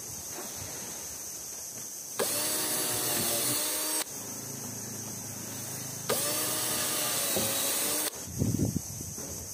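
Cordless drill running in two bursts of about two seconds each as it bores into a wooden slat board, the motor pitch rising as each run starts. A few low knocks follow near the end.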